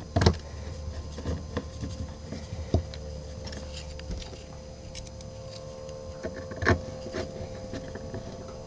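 Screwdriver and hands working at a wall-mounted 220 V socket: scattered small clicks and knocks, with a few louder knocks, over a steady faint hum.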